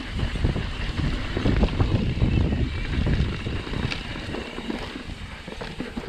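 Wind rushing over the camera microphone as a mountain bike rolls fast down dirt singletrack, with tyre rumble and short knocks and rattles as the bike goes over bumps. Loudest in the first three seconds, easing off after.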